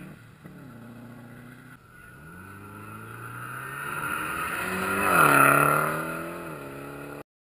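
Rally car engine pulling hard on a gravel stage, its note climbing and dropping back as it shifts up through the gears. It grows loudest as the car passes close, about five and a half seconds in, with the pitch falling as it goes by. The sound cuts off abruptly near the end.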